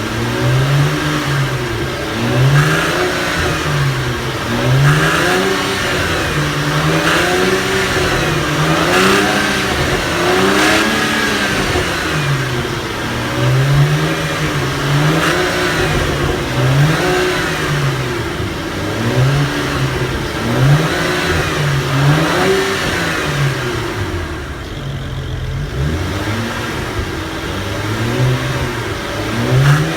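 Engine running with its speed swelling up and falling back in a steady cycle about every two seconds, the strange sound its owner is recording.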